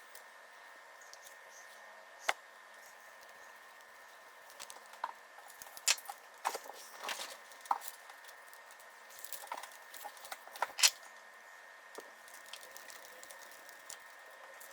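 Scattered sharp clicks and light knocks of small parts and tools being handled during RC truck assembly, at uneven intervals, over a faint steady whine.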